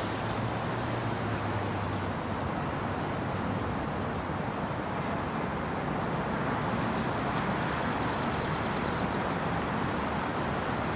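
Steady wash of city traffic noise rising from the streets below, even and unbroken.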